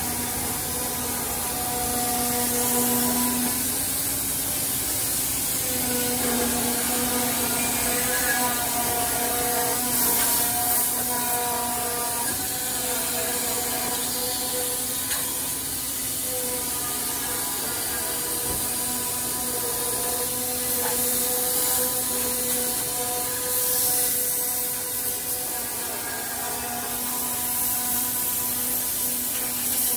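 CNC band saw cutting a curved profile through a glued-up wooden block: a steady hiss of the blade in the wood over the machine's steady hum.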